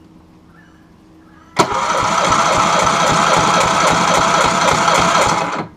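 Electric starter motor cranking a Yamaha 50 HP four-stroke outboard over without it firing, for a compression test on one cylinder. It starts suddenly about a second and a half in, runs steadily with a regular pulse for about four seconds, and cuts off abruptly.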